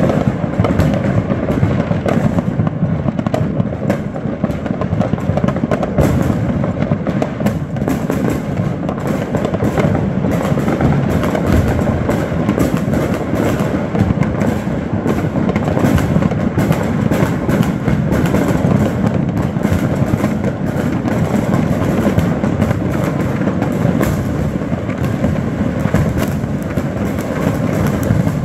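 Many fireworks and firecrackers going off at once across a neighbourhood: a dense, continuous crackle of overlapping pops and bangs with no pause.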